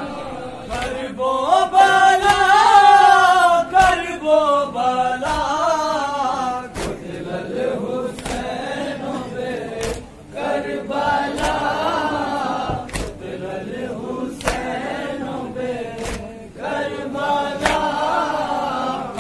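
A group of men chanting a Shia nauha lament in chorus, punctuated by sharp slaps about every second: hand strikes of matam chest-beating keeping time with the chant.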